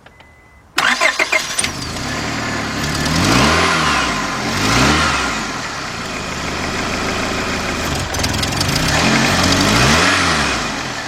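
Honda Accord 2.3-litre four-cylinder engine cranking briefly about a second in, catching and running, then revved three times, rising and falling in pitch. The engine now starts after a no-start caused by bad spark plug wires, though its throttle response is hesitant, as if it wants to stall.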